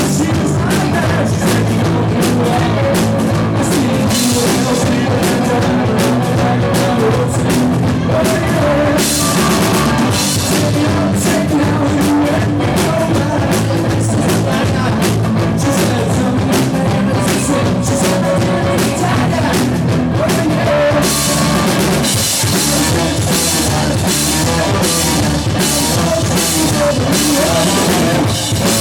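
Rock band playing a cover song: drum kit, guitar and bass with singing. The cymbals come up brighter about nine seconds in and again from about twenty-one seconds on.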